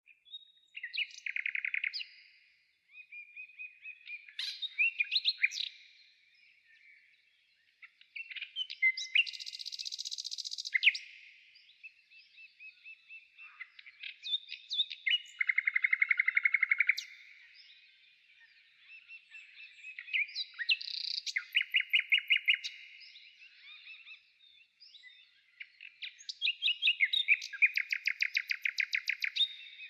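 Songbirds singing: a loud song phrase comes about every five to six seconds, several ending in a rapid trill, with quieter chirps and calls between phrases.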